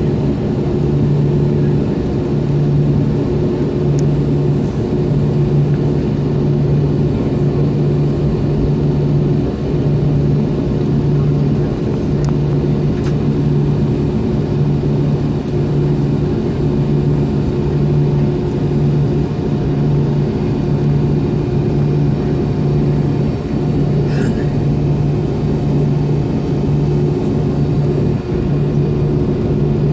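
MD-90's rear-mounted IAE V2500 turbofans at low power, heard from inside the cabin: a steady rumble with a low hum that throbs on and off about once a second.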